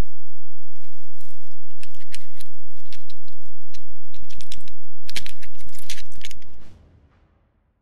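An American marten's claws scratching and knocking on a thin branch as it climbs to a hanging piece of ptarmigan carcass and jumps back down, heard as a quick run of sharp clicks and scrapes over a steady low hum. The sound fades out about a second before the end.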